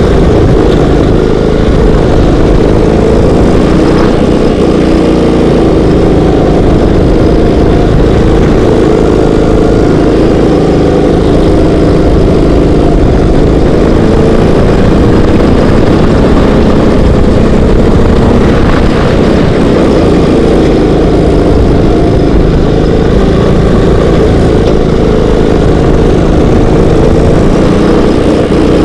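Go-kart engine running hard at racing speed, loud and close to the onboard camera, its pitch wavering a little through the corners.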